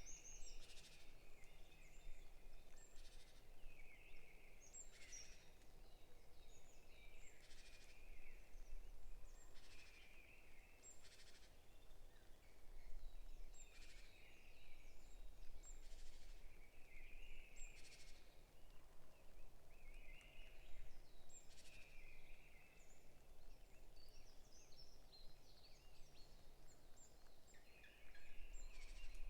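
Forest birds chirping and singing faintly, short high phrases repeating every couple of seconds over a quiet, steady outdoor background.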